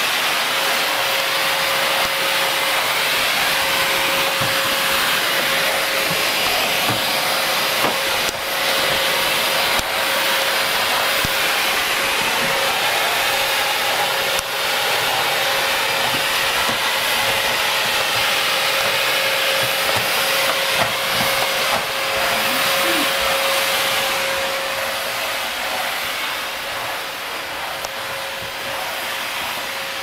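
Vacuum cleaner running steadily as its nozzle is pushed over a carpet: a constant rushing hiss with a motor whine held at one pitch. It grows a little fainter over the last few seconds.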